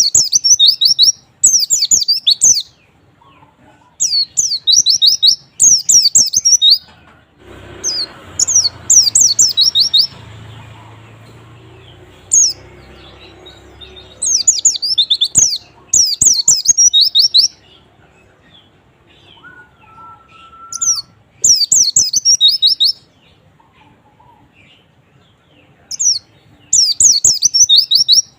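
White-eye (pleci) song: phrases of about a second of rapid, high, downward-sweeping twittering notes, repeated with short pauses between them. A low hiss runs underneath for several seconds in the first half.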